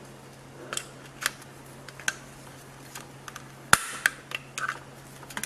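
Pliers gripping and working a fuse clip loose on a circuit board: scattered small clicks and ticks, with one sharp snap about three and a half seconds in as the part breaks away.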